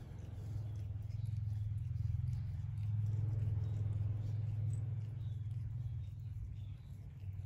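Domestic cat purring steadily close to the microphone, loudest in the middle, with faint licking as it grooms its paw.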